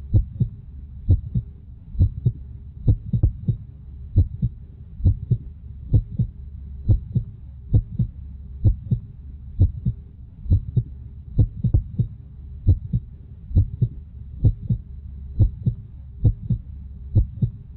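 Heartbeat sound effect: steady, even beats about once a second, each a double thump, over a low steady hum.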